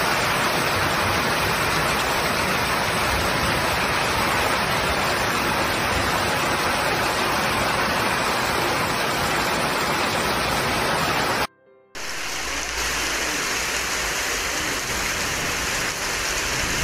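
Hailstorm: hail and rain pouring down heavily, a loud, dense, steady hiss. It cuts out for about half a second around 11 seconds in, then carries on.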